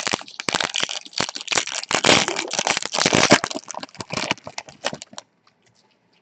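Foil wrapper of a trading-card pack crinkling and crackling as it is torn open and handled. The sound is a dense run of sharp crackles that stops about five seconds in.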